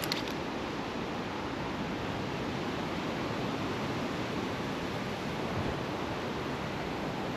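Steady rushing of flowing river water, even and unbroken, with a brief tick right at the start.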